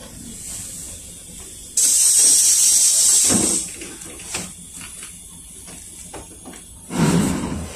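Compressed air venting from a PAZ 32054 bus's pneumatic system: a sudden loud hiss about two seconds in that lasts nearly two seconds and ends with a knock. A second short, heavy burst of air and a thump come near the end, with the ZMZ-5234 V8 engine running low underneath.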